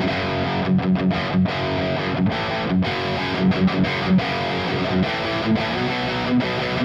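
Electric guitar played through an Ibanez Tube Screamer overdrive pedal into a Marshall tube amp: a distorted rock riff of short, repeated low chugs and chords. The pedal is switched on to push the amp harder into overdrive.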